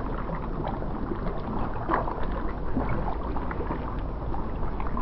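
Wind buffeting the microphone over shallow water, with small irregular splashes of water lapping.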